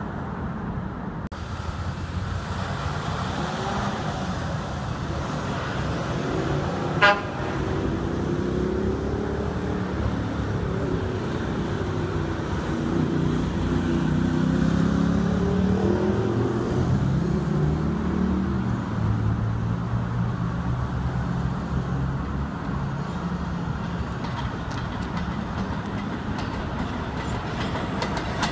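Steady road traffic from a busy multi-lane avenue below, with one short car-horn toot about seven seconds in. Over the last few seconds faint clicking from an approaching elevated subway train starts to come in.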